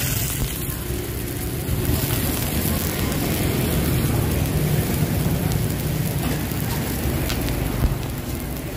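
Bánh xèo batter sizzling in hot pans, a steady hiss, with a low steady rumble underneath.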